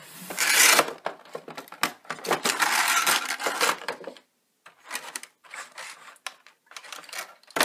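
Plastic packaging tray and cardboard box being handled: a few bursts of rustling and scraping, then scattered light clicks and knocks as a small plastic drone is pulled from its moulded tray.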